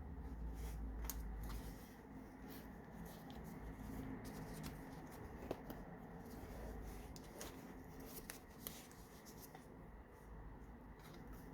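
Paper pages of a handmade junk journal being turned and handled, with soft rustling and scattered light clicks and taps.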